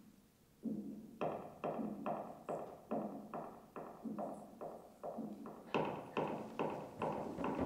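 A low-pitched drum struck in a steady beat, about two hits a second, each hit ringing briefly. The hits come faster and louder in the last couple of seconds.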